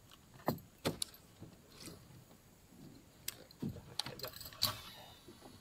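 Fishing tackle being handled: a baitcasting rod, reel and lure give a dozen or so scattered sharp clicks and light rattles.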